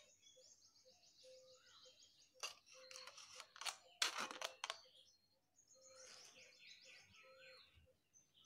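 Faint birdsong of fast, repeated high chirps, broken in the middle by rustling and knocks as a smartphone is pushed into the slits of a foam cup, the loudest knock about four seconds in.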